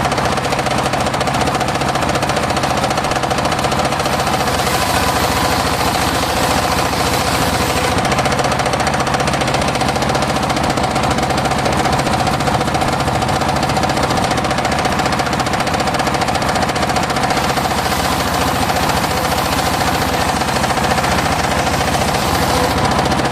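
Homemade engine-driven circular sawmill running steadily while sawing mahogany: a fast, even engine beat with a steady tone held over it.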